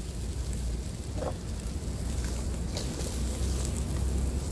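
Pig tongue sizzling on a charcoal grill, its fat dripping onto the hot coals, over a low steady rumble.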